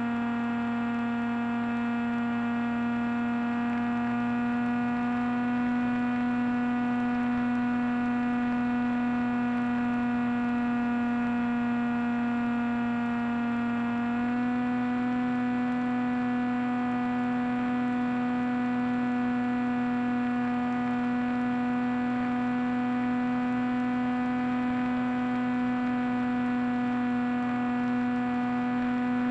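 Steady whine from the electric motor of a small FPV plane running in flight, heard through its onboard audio as a stack of even tones. The pitch steps up slightly about 14 seconds in.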